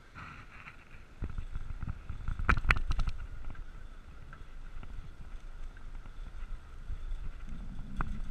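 Bicycle on 700x35 tyres rolling along, with wind buffeting the microphone over a low road rumble that grows louder about a second in. A short cluster of sharp knocks comes about two and a half seconds in, and another near the end.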